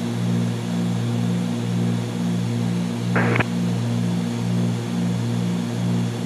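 Cessna 310Q's twin piston engines and propellers droning steadily in the cabin during climb-out, with a slight regular throb under a hiss of air noise. A short crackle cuts in about three seconds in.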